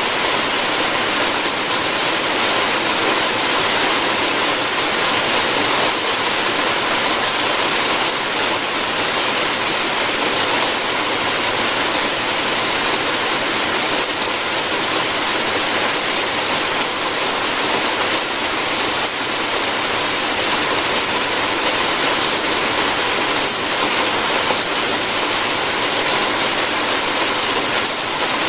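Steady rain falling on a roof, a dense, even hiss of drops with no let-up.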